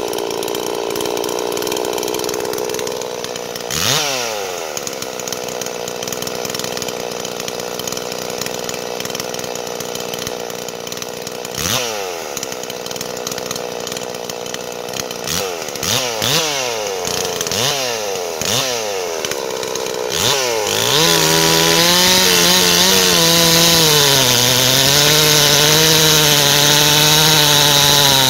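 Farmertec Holzfforma G444 two-stroke chainsaw idling and blipped briefly to high revs and back several times. About 21 seconds in it goes to full throttle and stays there as the bar cuts into a large dry hardwood log, the engine note wavering under load. The saw is still being broken in on 25:1 fuel mix.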